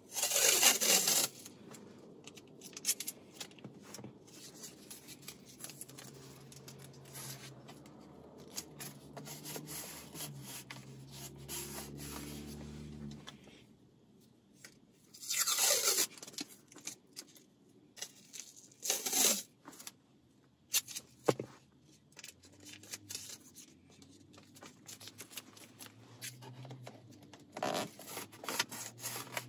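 Masking tape being pulled off the roll in four quick rips, each falling in pitch. Between the rips come quieter rubbing and scraping as the tape is pressed down along the edge of a plastic dashboard panel.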